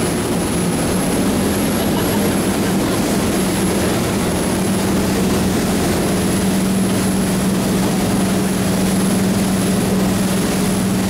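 Motorboat engine running steadily at speed, a constant hum under loud wind buffeting the microphone and water rushing from the wake.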